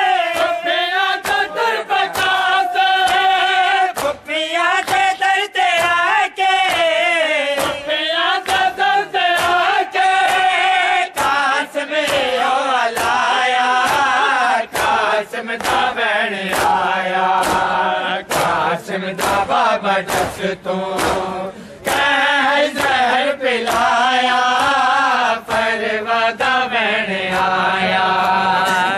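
Voices chanting a noha, a Shia lament, in a steady melody, over sharp rhythmic hand-slaps on bare chests (matam) at about two a second.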